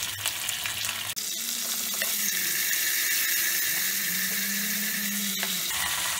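Curry leaves, dried red chillies and cumin seeds sizzling and crackling in hot oil in a small steel pan as the tadka tempering is made.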